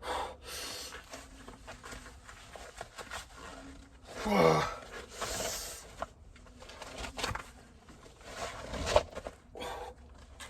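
A man breathing hard and groaning from the cold after a winter surf, with one loud groan about four seconds in that slides down in pitch, and rustling in between.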